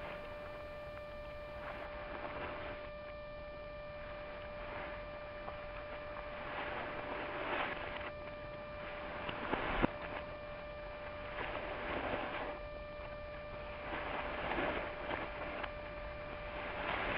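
Footsteps rustling through dry fallen leaves, an uneven soft scuff every second or so, with one sharper click or snap about ten seconds in, over a steady electrical hum.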